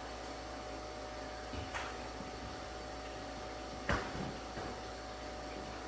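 A soft click and then, about four seconds in, a sharper clunk from the column gear shift lever of a 2002 Chevy Silverado 2500HD being moved, over a steady low hum.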